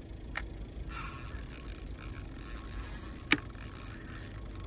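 Fishing reel mechanism working for a few seconds, with a sharp click about three seconds in, over a steady low rumble.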